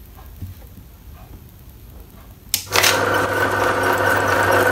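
Baijia banknote counter switching on with a click a little over halfway in, then its motor running steadily with a hum.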